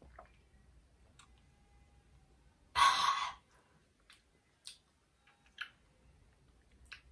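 A woman's loud, breathy sigh about three seconds in, lasting about half a second, with a few faint mouth clicks scattered around it.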